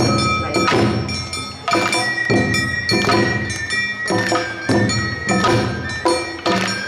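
Awa Odori festival music from the narimono band: drums and metal hand gongs struck in a steady beat, with a high melody note held for a couple of seconds in the middle.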